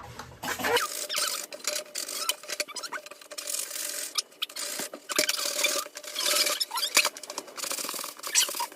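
Drill boring through a plastic bucket wall: a faint steady whine with dense scraping, squeaking and clicking of the bit in the plastic.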